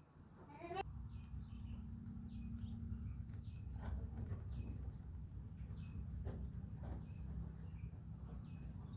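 A bird chirping repeatedly in short high notes over a steady low hum that grows louder about a second in.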